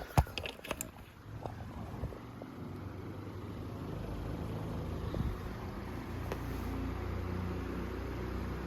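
Vintage Fresh'nd Aire 26-inch table fan running at high speed, a steady low rumble of moving air that builds from about four seconds in. A few sharp knocks near the start.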